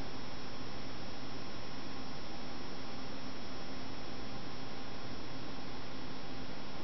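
Steady hiss with a constant electrical hum and no other sound: background noise from the transfer of a silent film.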